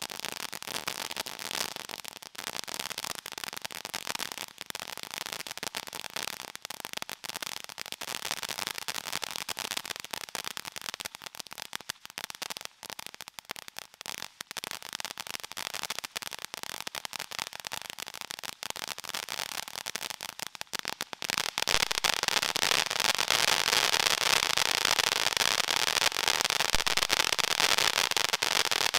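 TNT Fireworks 'Fancy Pants' ground fountain spraying sparks, a steady hiss full of rapid crackles. About 21 seconds in it gets louder into a denser, stronger hissing spray.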